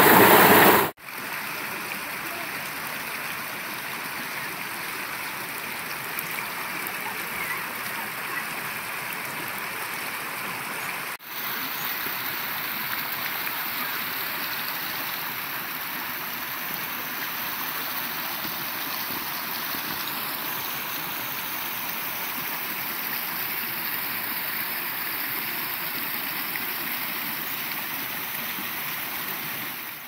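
Small mountain creek rushing and gurgling over rocks, a steady watery noise. It is much louder for about the first second, then drops to a lower steady level, with a brief break about eleven seconds in.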